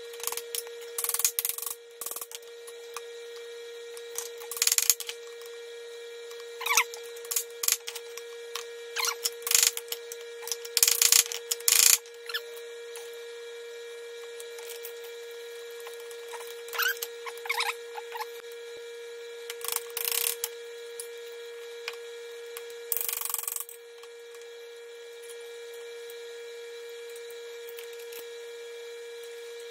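Irregular metallic clinks, knocks and short scrapes of hand tools and steel parts as the brake-band linkage in a dozer's steering-clutch compartment is fitted back together, over a steady background hum.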